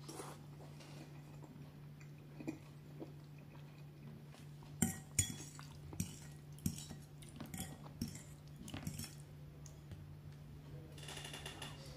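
Metal fork clinking and scraping against a ceramic bowl while gathering the last of the spaghetti in tomato sauce: a string of sharp clinks from about five seconds in, ending in a ringing clink near the end.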